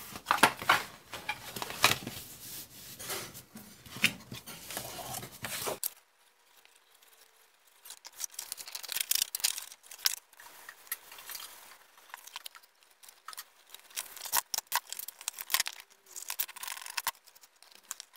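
Thin paperboard cookie box handled and pulled open along its folds and seams: repeated rustling, scraping and short tearing sounds of card.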